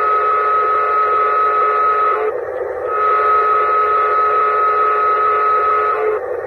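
Recorded diesel horn from the onboard sound system of a Menards O gauge Santa Fe F-unit model locomotive: two long blasts with a short break a little over two seconds in. The longer blast comes from holding the horn button down and tapping it, because a single press gives only a short toot.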